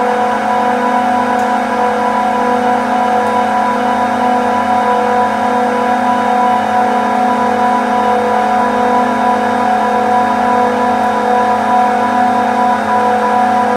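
Steady machinery drone of a refrigeration compressor plant room: a constant hum with a pitched tone and its overtones, unchanging in level.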